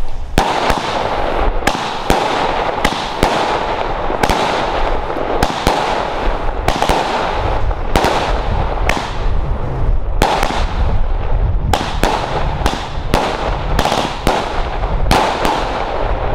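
A 16-shot, 25 mm consumer firework battery (cake) firing: a rapid string of sharp bangs from launches and bursting shells, about every half second, over a continuous hiss.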